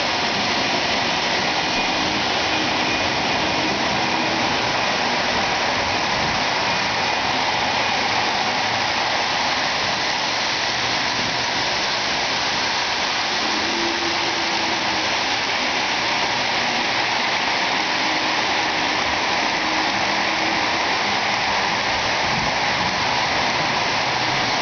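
O-gauge model train rolling along the layout track: a steady, even rushing rattle of metal wheels on the rails, with no let-up.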